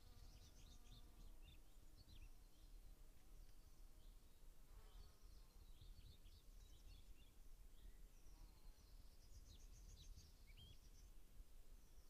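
Faint spring ambience: several small birds chirping and trilling throughout, a buzzing insect passing near the start and again around the middle, over a low steady rumble.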